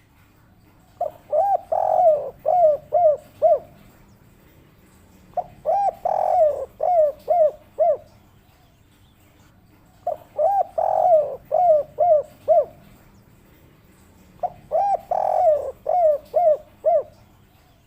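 Spotted dove (tekukur) cooing, the song type Indonesian keepers call 'kuk 3'. Four phrases come about four and a half seconds apart, each a quick run of short coos with one longer, fuller coo near its start.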